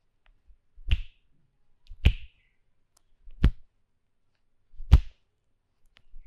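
Hand slaps on the customer's body during an Indian head massage: four hard, separate smacks about one to one and a half seconds apart, with a fifth just at the end.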